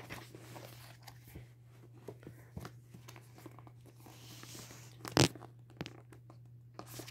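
Paper pages of a paperback graphic novel being handled and turned, a soft rustling with faint clicks, and one sharp, louder crack about five seconds in, over a faint steady hum.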